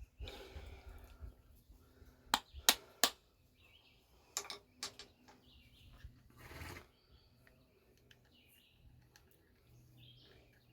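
Hand work on a tractor starter: a few rustles of handling, then three sharp metal clinks a couple of seconds in and two more around four and a half seconds, as tools and a nut are handled to fit it onto the starter bolt. Birds chirp faintly in the background.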